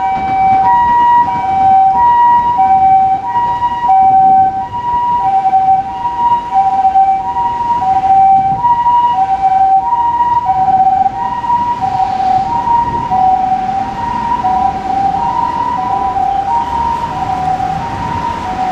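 Japanese ambulance siren sounding its two-tone call, alternating evenly between a high and a low tone. It grows gradually quieter toward the end.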